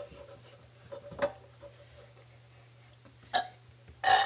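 A person burping: a short, pitched burp near the end, louder than two smaller throat sounds before it.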